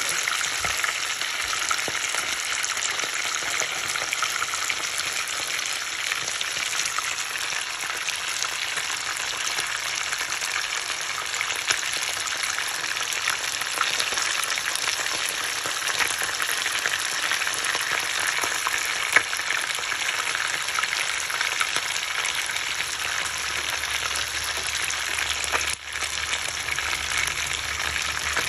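Whole fish shallow-frying in hot oil in a pan: steady sizzling and crackling, with a few sharper pops and one brief dip in level near the end.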